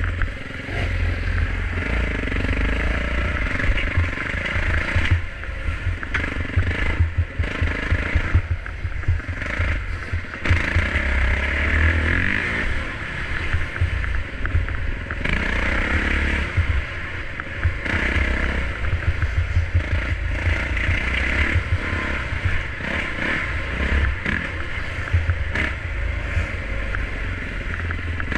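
Off-road motorcycle ridden along a sandy single-track trail, its engine running continuously and swelling and easing off with the throttle.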